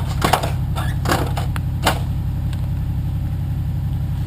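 Wrecker truck's engine idling steadily with an even low throb, and three short clattering knocks in the first two seconds.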